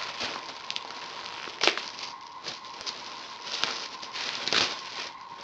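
Clear plastic packaging bag crinkling and rustling as a fabric hydration carrier is worked out of it, in irregular crackly handfuls with a louder crackle about a second and a half in and another near the end.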